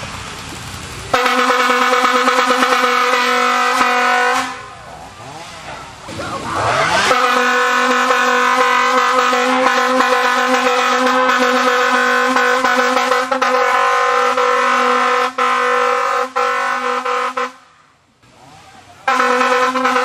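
Air horn blowing in three long blasts: one steady, buzzy, single-pitched tone. The first lasts about three seconds, the second about ten seconds with two brief breaks near its end, and the third starts about a second before the end. A quieter rising sound comes between the first two blasts.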